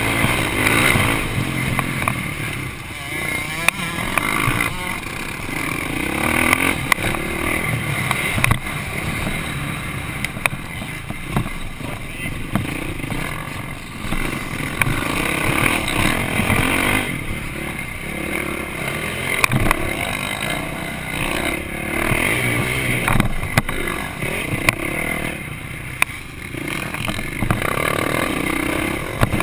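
Motocross bike engine heard from a camera mounted on the bike, revving up and down as the rider works the throttle around the track. Other dirt bikes are running close by, and there are sharp knocks every few seconds.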